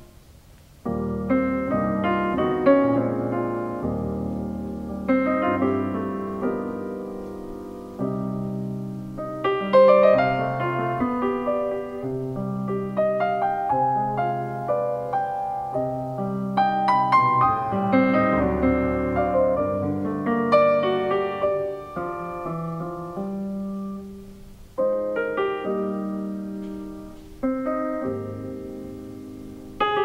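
Solo grand piano played live: full chords struck and left to ring, with quick runs of notes in places and fresh loud chords every few seconds. The playing comes in about a second in after a brief near-silent pause.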